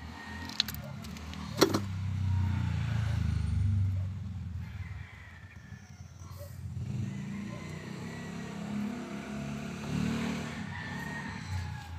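Two sharp clicks from a hand wire stripper in the first two seconds, under the low rumble of a passing vehicle. A rooster crows faintly near the end.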